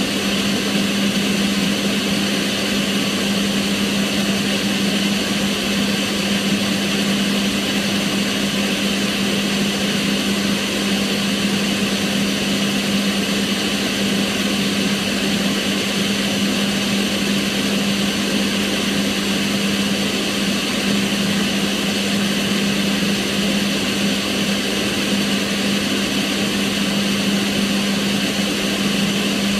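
Kitchen range hood fan running steadily: an even rush of air with a steady hum under it, unchanging throughout.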